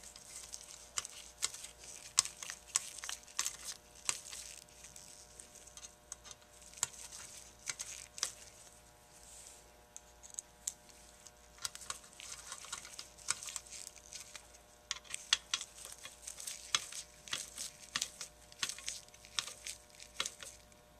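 Small irregular clicks, taps and scrapes of a screwdriver and fingers working the throttle blade screws and shafts on a Holley carburetor base plate as the blades are centered and tightened down, over a faint steady hum.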